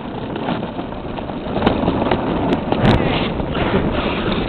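Toboggan loaded with four riders sliding fast down an icy toboggan chute: a steady rushing scrape of the board on the ice, with several sharp knocks and bumps from about a second and a half in.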